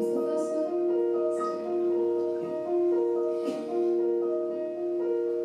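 Piano accompaniment playing slow, held chords that change about once a second.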